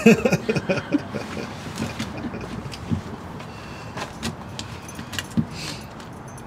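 Light clicks and rustling as a cigarette pack is handled and a cigarette is drawn out, over a steady low background rumble, with a short burst of voice at the very start.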